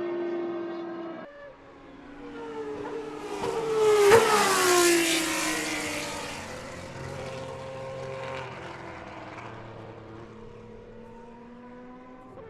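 Panoz DP09B single-seater's 4.2-litre V12 racing engine passing at high speed. It builds to its loudest about four seconds in, drops in pitch as it goes by, then fades as the car pulls away. Before that, a steady engine note cuts off abruptly just over a second in.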